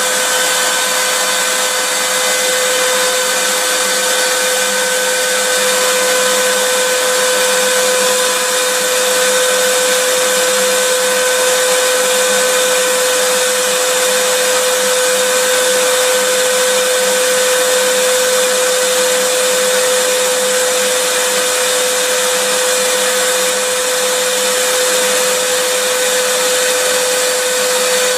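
Vacuum cleaner running steadily: a constant rush of air with an unchanging motor whine.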